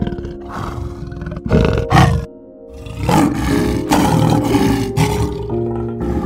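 Big-cat roars and growls in several rough bursts, the loudest about two seconds in, over background music with sustained tones.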